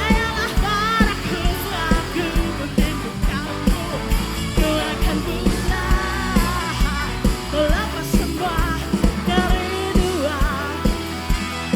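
A live band plays a dangdut song while a lead vocalist sings the melody with wavering vibrato, over a steady drum beat.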